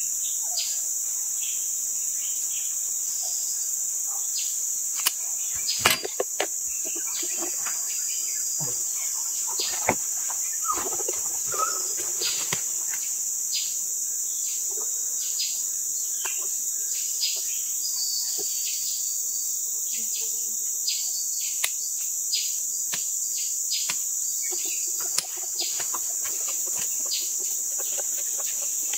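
Steady, high-pitched chorus of rainforest insects, with scattered light clicks and knocks from handling tools and wood. A sharper knock comes about six seconds in.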